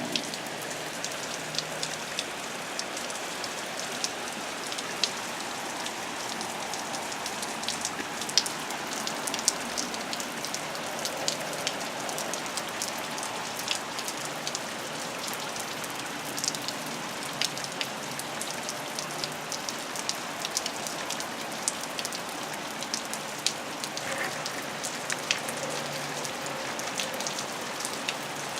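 Steady rain falling, with many sharp drop impacts close by.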